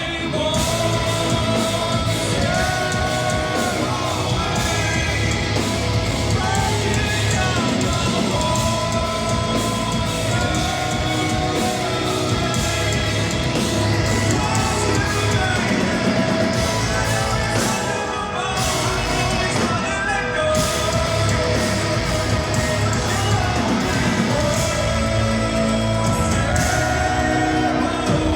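Live hard rock band playing at full volume: distorted guitars, bass and drums, with a lead vocalist singing over them, heard with the echo of a large room.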